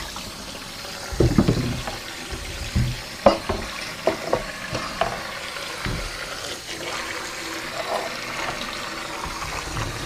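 Kitchen tap running into a stainless steel sink as apples are washed by hand under the stream, with a few knocks and thumps in the first half.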